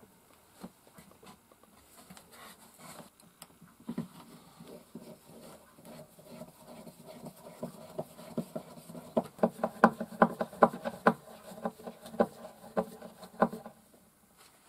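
Hand screwdriver driving small screws through metal hanging brackets into a wooden shelf: a quick, uneven run of clicks and creaks that starts a few seconds in, grows loudest past the middle and stops shortly before the end.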